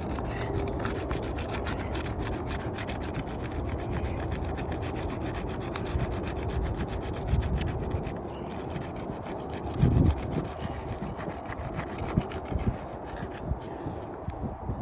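Asphalt roof shingles scraping and rubbing as their seal is broken and they are worked loose. There is a dull thump about ten seconds in.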